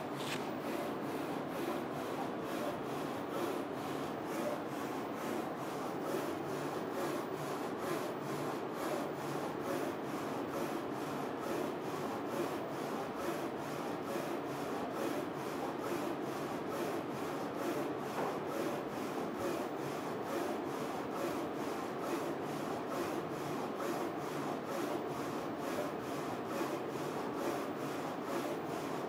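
Focus Alpha-Jet A2 UV printer running a rotary print on a mug in its mug jig: a steady mechanical whirr and hiss with a faint fast regular pulse running through it.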